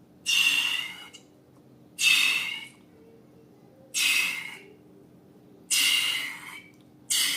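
Four short, airy hisses with a whistling tone, each starting suddenly and dying away within about a second, about two seconds apart.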